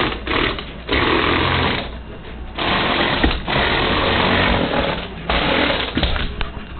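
LEGO Crystal Reaper model (set 7645) driven by Power Functions electric motors, its motors and plastic gearing whirring and rattling. It runs in several spurts that start and stop, the longest lasting over two seconds near the middle.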